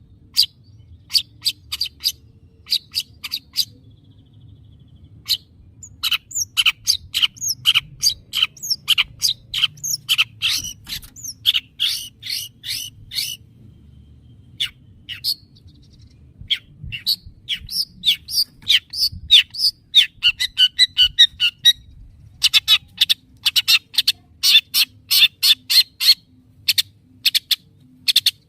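Long-tailed shrike (cendet) calling in quick runs of short, sharp, high chattering notes, in dense bursts broken by brief pauses a few seconds in and about halfway through. A faint low hum lies underneath.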